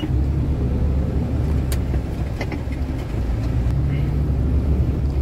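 Heavy truck's diesel engine running steadily while driving, a strong low drone, with a couple of faint clicks in the middle.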